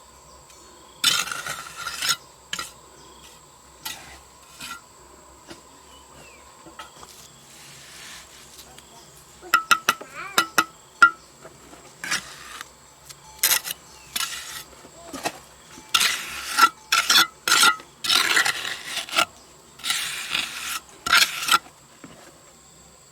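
Irregular scraping and clattering strokes of hand work, coming thicker and louder in the second half, over a faint steady high whine.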